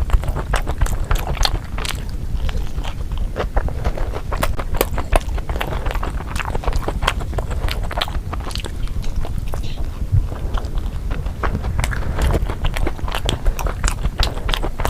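Biting and chewing a heavily loaded pizza: a dense, irregular run of crisp clicks and crunches.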